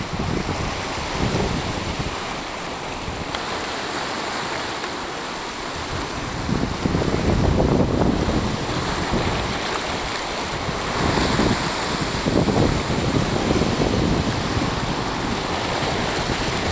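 Sea swell surging and washing against the rocks below, with wind buffeting the microphone. The wash grows louder about halfway through and comes in repeated surges.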